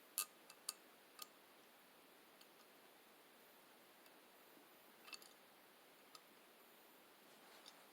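Faint, scattered clicks of small steel revolver parts being handled as the hammer screw is lined up: a few in the first second and a half, more about five and six seconds in, and one near the end. Otherwise near silence.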